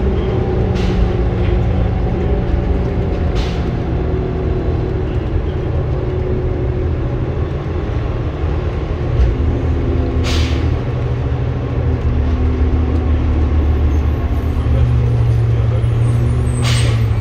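Inside a 2003 New Flyer D40LF diesel transit bus: the engine runs steadily, with its pitch shifting a few times as the bus moves. Short bursts of air hiss come from the air brakes four times, the strongest about ten seconds in and near the end.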